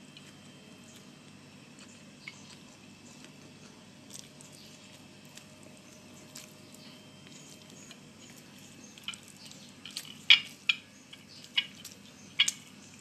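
Wet clicks and smacks of blanched moringa leaves being eaten by hand. A few come scattered at first, then several sharp, loud ones bunch together in the last few seconds, over a low steady hum.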